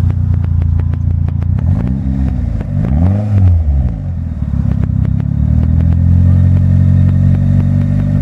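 1997 Mitsubishi Eclipse GSX's turbocharged four-cylinder engine idling with a steady knock, blipped up and back down twice about two and three seconds in, then settling back to idle. The knock is rod knock from a bad connecting rod in the bottom end.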